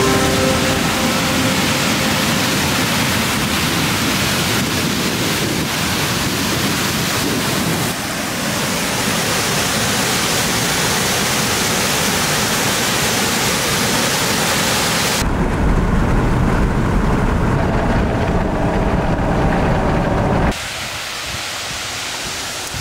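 Steady rush of water pouring through a concrete dam spillway, a loud even noise. For a few seconds in the latter part a heavy low rumble of wind on the microphone takes over, and near the end the sound drops to a quieter, softer rush.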